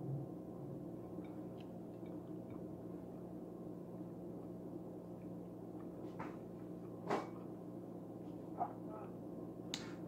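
Steady hum in a small room, with a low thump near the start and a few short, light clicks and taps of eating at a table, the sharpest about seven seconds in.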